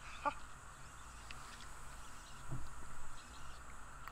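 Quiet waterside ambience with a short bird call about a quarter second in and a low bump about halfway through.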